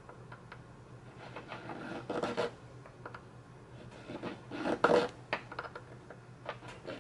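Small triangular needle file rasping across a pipe stem in a few short, uneven strokes, the loudest about five seconds in, deepening a scribed line that marks the stem's button.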